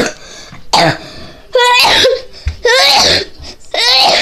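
A child's voice in about five short, loud bursts: rough cough- or throat-clearing-like sounds mixed with sliding, pitched vocal noises, not words.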